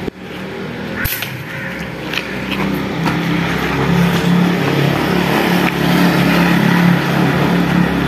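A motor vehicle's engine running, a steady hum that grows louder from about two seconds in, with one sharp click about a second in.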